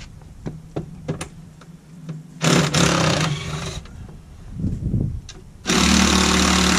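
Power driver running in two bursts, one of about a second and a half and another starting near the end, as the bolts holding a gun safe to its pallet are backed out; a few light clicks come before the first burst.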